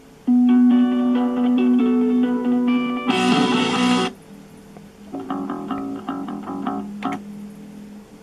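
Guitar music from a CD played through the speakers of an Aiwa CDS-A190 portable CD/radio/cassette player. It comes in two short snippets that start and cut off, about four seconds and then about two, as the player jumps between tracks.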